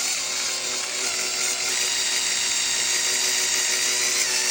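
Electric drill running steadily with a steady whine, spinning a radio knob that is being buffed with silver polish; its pitch dips briefly a few times as the spinning knob is pressed and loaded.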